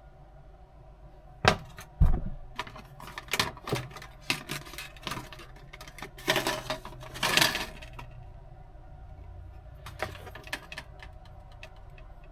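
Hands handling a metal Pokémon tin box: a run of sharp clicks, knocks and light metallic rattles. The two loudest knocks come about one and a half and two seconds in, and two short bursts of rustling follow about six and seven seconds in.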